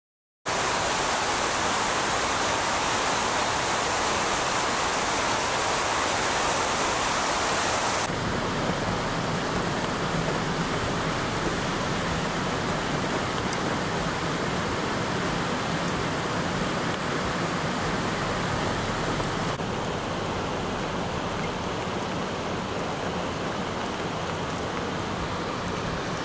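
Flash-flooding river: a steady rush of fast, turbulent floodwater. It starts abruptly about half a second in, then changes sharply and drops a little in level about 8 seconds in and again near 20 seconds.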